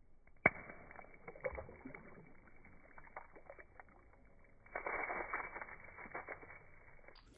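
A water balloon popped with a pin, slowed down so it sounds low and muffled: a sharp pop about half a second in, then water splashing and dripping, with a louder, denser splatter of water for a second or two about five seconds in.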